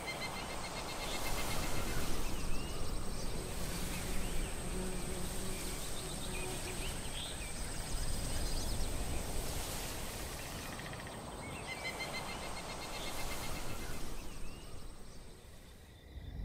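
Woodland ambience of birds and insects: short repeated bird chirps and trills over a steady high insect drone and a low hiss of background noise, fading out near the end.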